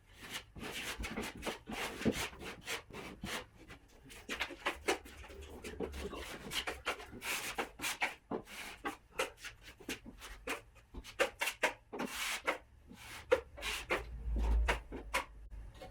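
Steel drywall taping knife scraping joint compound over a plasterboard butt joint in many short, irregular strokes.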